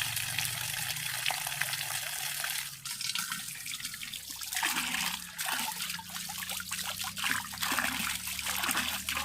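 Water trickling and splashing, a steady crackly hiss.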